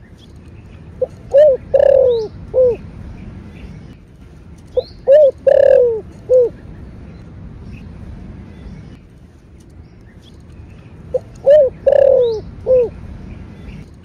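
Spotted dove cooing its call three times, each phrase a short note, a quick pair, then a long falling coo and one last short note, repeated about every five seconds.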